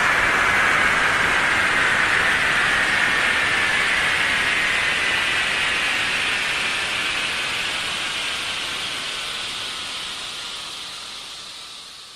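Airplane engines after takeoff, moving away: a steady rush of engine noise with a high whine that slowly falls in pitch, fading out gradually.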